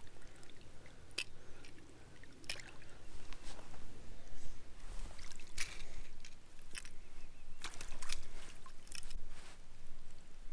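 Wet, irregular splashes and squishing from a small trout in a rubber landing net as it is lifted from the water and handled to remove the hook: a scatter of short, sharp sounds a second or so apart.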